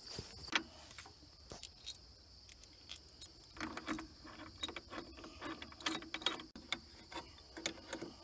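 Irregular metallic clicks and clinks of a socket wrench and ratchet working a nut on the steering tie rod of a Case 7140 tractor, fitting the new rod.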